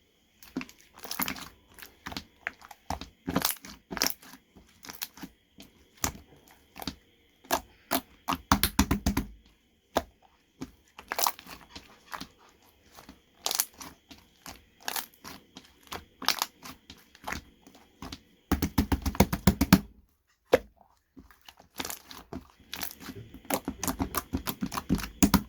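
Irregular sharp clicks and taps, broken by a few dense rattling runs lasting about a second each, over a faint steady high whine.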